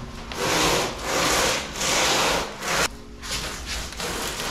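A heavy cardboard-boxed tool chest being shifted on a garage floor, its corners scraping and rubbing in four rough strokes, each under a second.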